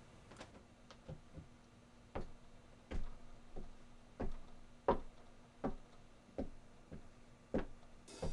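Slow, evenly spaced knocks or thuds, about one every three-quarters of a second, growing louder toward the end.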